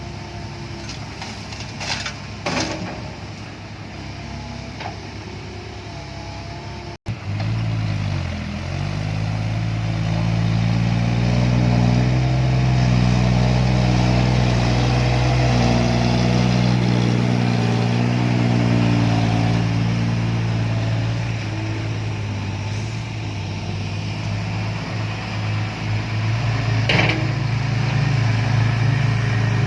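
Heavy diesel engine running with a deep, even hum. After a break about seven seconds in it runs louder and steadier, as under load. A few sharp metallic clanks, the loudest near the end.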